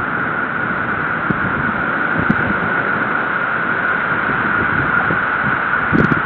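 Steady, loud hiss of a thunderstorm's rain and wind on a nest camera's microphone, with a few faint clicks and low knocks, the strongest near the end.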